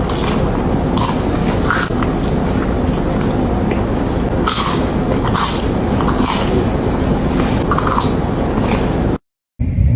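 Close-up crunchy biting and chewing of food: irregular sharp crackles over a steady low rumble. The sound cuts out for a moment near the end.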